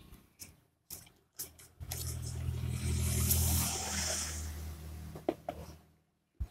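A few light handling clicks, then a passing motor vehicle: a low engine hum with a hiss over it swells over about two seconds and fades away again.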